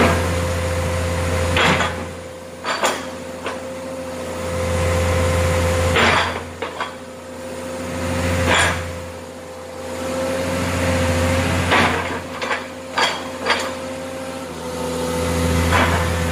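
Komatsu excavator's diesel engine running, its low hum swelling and easing as the hydraulics work the boom and rotary log grapple, over a steady whine. Sharp metallic clunks come every second or two to every few seconds as the grapple and boom move.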